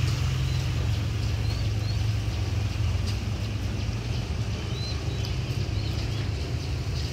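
Steady low outdoor rumble, with a few short, high rising bird chirps.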